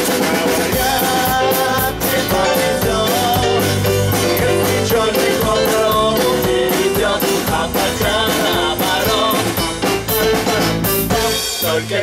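Live band playing an upbeat rock-and-roll groove on drum kit, electric bass guitar and acoustic guitar.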